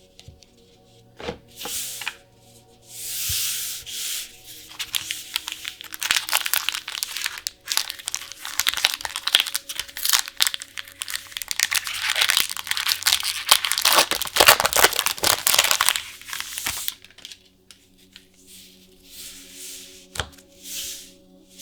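Trading-card gift box packaging being handled: dense rustling, rubbing and tearing of wrapper and cardboard, heaviest in the middle stretch and fading to lighter handling near the end. Soft background music runs underneath.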